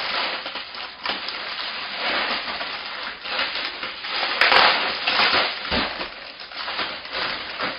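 Packing material in a cardboard box rustling and crinkling as it is dug through by hand. Continuous, with a louder crumpling burst about halfway through.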